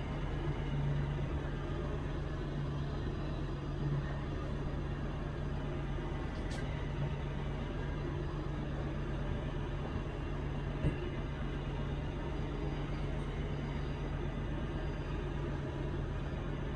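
Diesel engine of heavy equipment running at a steady speed, with a low even hum and a couple of brief clicks.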